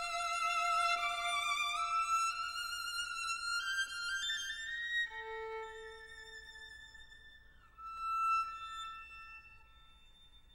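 Background music: a solo violin-like melody of held notes with vibrato, climbing in pitch, then thinning out and fading over the last few seconds.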